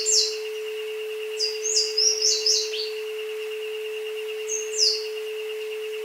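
Synthesized isochronic tone track: a steady tone with a fainter, higher, rapidly pulsing tone beneath jungle bird calls. The birds give quick high chirps that sweep downward, a pair right at the start, a run of them from about one and a half to three seconds in, and one more near five seconds.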